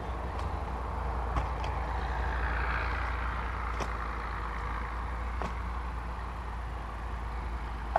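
A few light knocks of split firewood pieces being handled on a woodpile, over a steady low rumble that swells in the middle.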